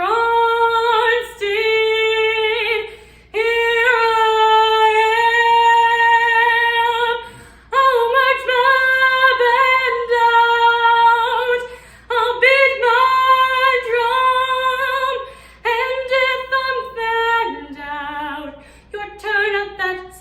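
A woman singing solo and unaccompanied, holding long sustained notes. The longest is held about four seconds, and the phrases drop lower near the end.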